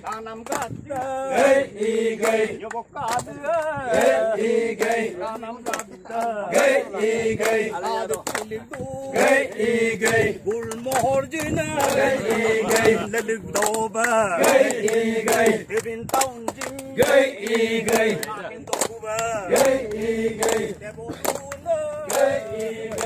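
A group of voices singing a chant together in repeated, drawn-out phrases, with frequent sharp clicks throughout.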